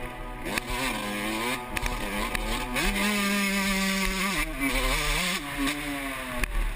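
Motocross bike's engine revving up and down through its range, holding a steady pitch for about a second and a half midway before dropping off.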